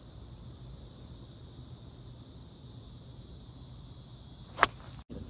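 A golf club strikes the ball once about four and a half seconds in: a single sharp crack, the loudest sound. Under it, a steady high-pitched insect chorus.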